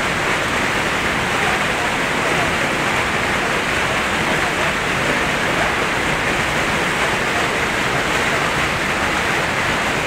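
Whitewater of the fast Beas River rushing over boulders, a steady loud rush with no breaks.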